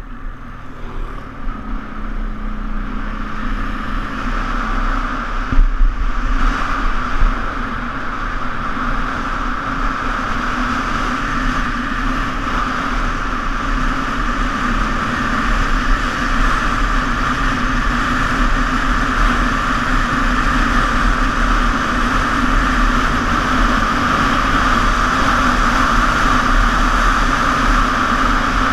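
ATV (quad bike) engine running at speed on a gravel track, heard from the rider's seat with wind and rumble on the microphone. It grows louder over the first several seconds as the quad picks up speed, then holds steady, with a few knocks about five to seven seconds in.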